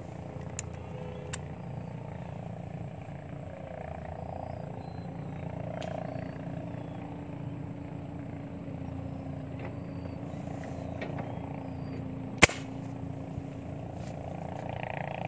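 A single sharp crack about twelve seconds in, from the fish-hunting gun being fired at the water, over a steady low background hum.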